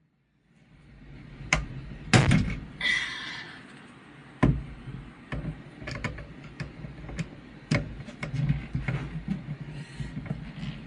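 Screwdriver working at a stuck screw on an HVAC contactor: irregular sharp metal clicks and knocks, the loudest about two seconds in, with some scraping between them.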